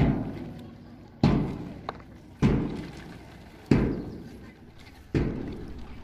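A slow, steady beat of five heavy booming thuds, one about every 1.3 seconds, each dying away over about a second.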